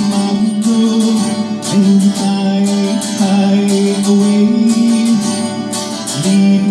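Music: acoustic guitar strummed in a steady rhythm.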